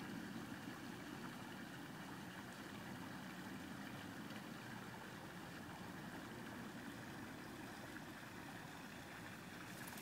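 Faint, steady outdoor background noise with no distinct event in it.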